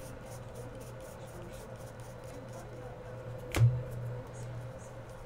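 Chrome trading cards being handled and shuffled by hand: a faint run of light clicks, with one knock and thump about three and a half seconds in. A steady low hum runs underneath.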